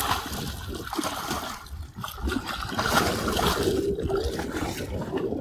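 Water splashing and churning against the side of a boat as a hooked musky thrashes at the surface while it is grabbed by hand.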